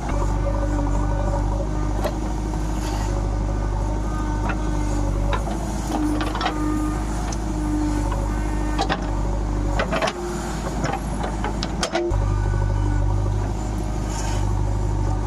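Diesel engine of a JCB 3DX backhoe loader running steadily while it works, with scattered clanks and knocks. The engine note drops away briefly about ten seconds in and returns strongly about two seconds later.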